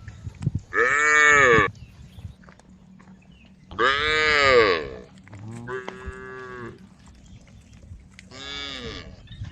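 Cows mooing: four long calls of about a second each, each rising and then falling in pitch, the loudest about four seconds in.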